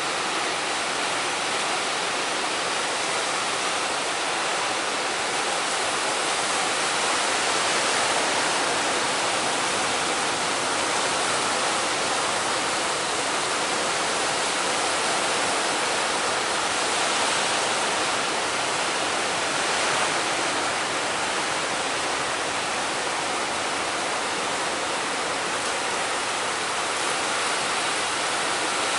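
Steady rushing roar of big waves breaking on the shore in a strong wind.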